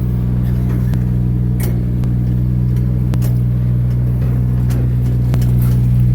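An engine running steadily at an even speed, with a few sharp clicks and knocks over it.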